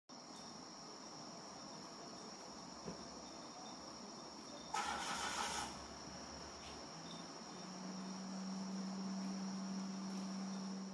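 Evening insect chorus: a steady, high-pitched droning trill. A brief louder hissing burst comes about five seconds in, and a low steady hum joins from about seven seconds on.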